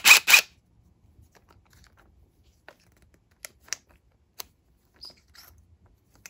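Quick-release chuck of a DeWalt cordless impact driver, freshly reassembled, with a hex bit being pushed in: a few sharp metallic clicks right at the start, then faint scattered clicks as the collar and bit are worked by hand.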